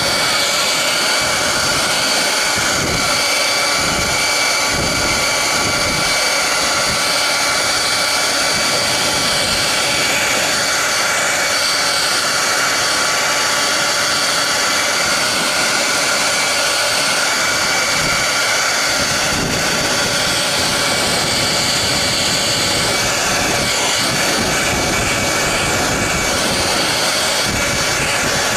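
Hair dryer running steadily: an even rush of air with a high fan whine, and a low gusty rumble that comes and goes.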